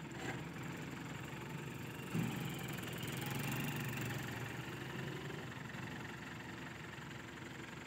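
ACE mobile crane's diesel engine running steadily at idle while it holds a railway bogie on its hook. A single sharp clank comes about two seconds in.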